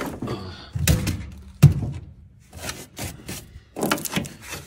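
A run of knocks and clatters from handling things, the loudest a single thunk a little under two seconds in.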